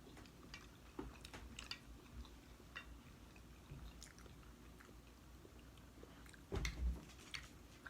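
Close-up chewing of soft pasta, with small wet mouth clicks and smacks, and a louder knock about six and a half seconds in.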